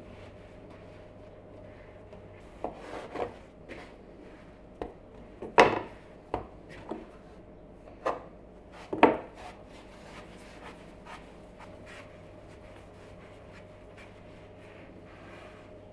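A large kitchen knife cutting pastry dough into pieces on a wooden cutting board: a scattering of sharp knocks as the blade meets the board, the two loudest about five and a half and nine seconds in. After that come quieter rubbing sounds of hands handling the dough.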